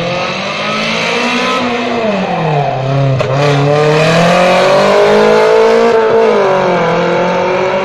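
1993 Toyota Celica's engine revving hard under acceleration, its pitch falling and climbing again twice, about two and a half and six seconds in, and growing louder as the car comes near. A short sharp crack about three seconds in.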